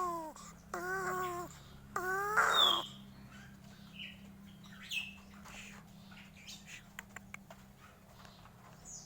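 Crow giving three short calls in the first couple of seconds, each bending up and down in pitch, then a brief harsh burst with a high squeak about two and a half seconds in, followed by faint scattered clicks.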